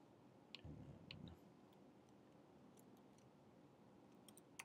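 Near silence with a few faint clicks from a computer mouse and keyboard, a small cluster of them near the end.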